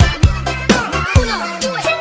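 Upbeat electronic dance music with a steady drum beat; about halfway through, a low note slides steadily downward in pitch.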